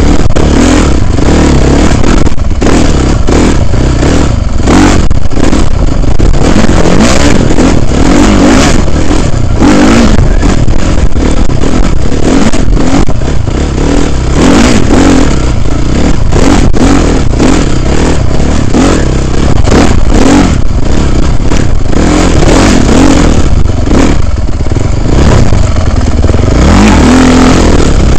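Dirt bike engine revving up and down again and again as the throttle is worked over a rough trail, loud, with heavy rumbling wind noise and frequent knocks on the helmet-mounted microphone.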